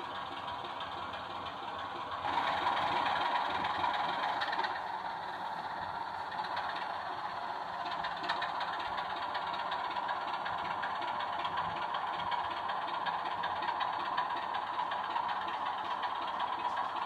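Recorded diesel engine sound from a sound-fitted model diesel locomotive, played through its small speaker: a steady running drone that gets louder about two seconds in.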